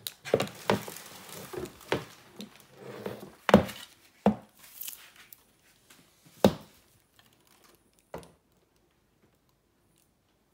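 Parts of a baby changing table being handled and set down on a wooden floor: a series of sharp knocks, the loudest about three and a half and six and a half seconds in, with crinkling plastic wrapping over the first few seconds.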